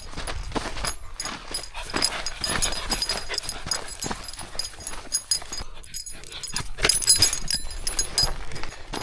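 Labrador puppy making excited dog noises, over dense crackling and rustling.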